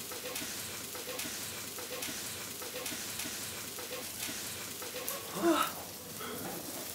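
Tabletop barbecue grill sizzling and crackling steadily, with a short voiced exclamation about five and a half seconds in.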